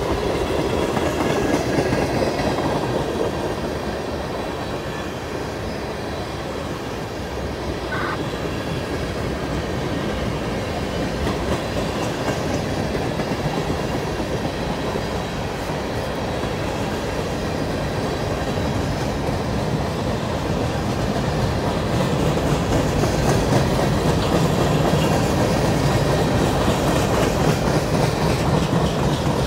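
Cars of a manifest freight train rolling past, a steady noise of wheels on rail, with a brief higher-pitched squeal about eight seconds in.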